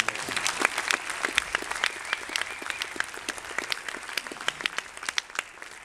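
A cinema audience applauding: many hands clapping together, dying down towards the end.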